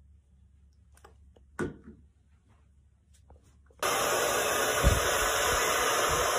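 Handheld hair dryer blowing steadily, cutting in suddenly about four seconds in. Before it there are only a few faint taps.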